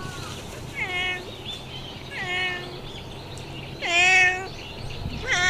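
A cat meowing repeatedly: four short meows, each rising and then falling in pitch, a second or so apart, the third the loudest.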